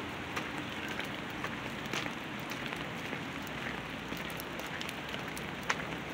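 Steady rain falling, an even hiss with scattered irregular taps of drops.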